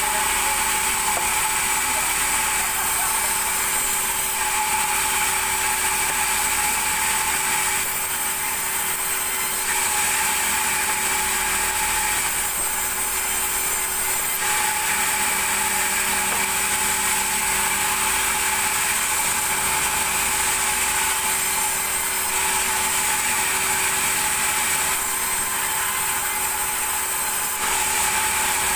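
Sawmill vertical band saw running with a steady whine, ripping lengthwise through a thick timber slab. Its hiss dips briefly every few seconds as the board is fed through.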